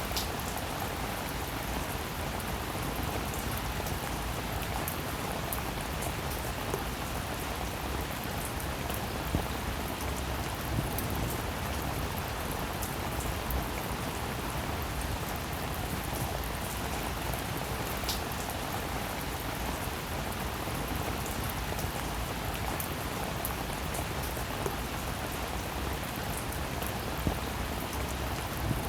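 Steady rainfall, an even hiss with scattered sharper drop ticks.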